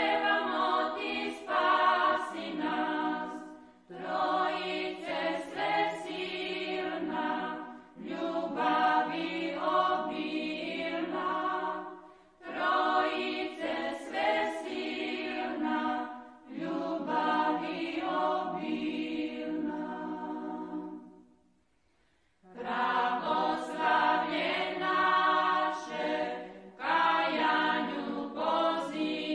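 Women's choir of Orthodox nuns singing a Serbian Orthodox hymn a cappella, in phrases of about four seconds with short breaks between them. A longer pause comes a little past two-thirds of the way through.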